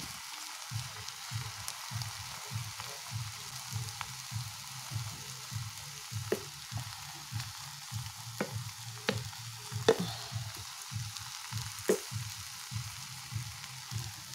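Egg, cabbage and corned beef sizzling steadily in a nonstick frying pan, with a wooden spatula pressing and scraping across the food. Soft low thumps come about twice a second, and a few sharper clicks of the spatula on the pan come in the second half, the loudest a little before the end.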